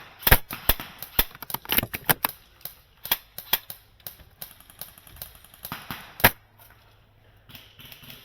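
Airsoft guns firing: a quick, irregular string of sharp pops over the first two seconds or so, then scattered single shots, with one loud shot about six seconds in.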